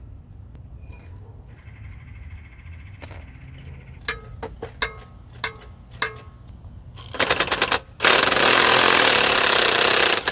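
Scattered metallic clinks and taps of metal parts being handled, then a power tool running loudly for the last couple of seconds, starting with a quick rattle about seven seconds in.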